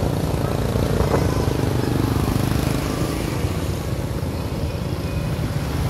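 Small motorcycle engine running steadily under the rider as it travels along a street, with road noise.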